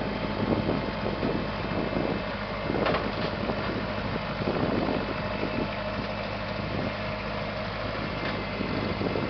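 Compact utility tractor's diesel engine running steadily at low idle as it creeps in low gear onto a tilt trailer, with a couple of light clunks along the way.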